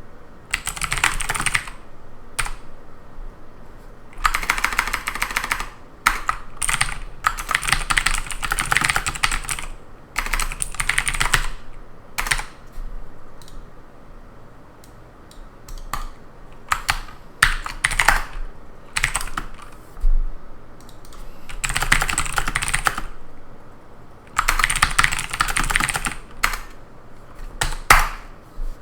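Typing on a computer keyboard: fast runs of keystrokes lasting a second or two, broken by pauses with a few single clicks.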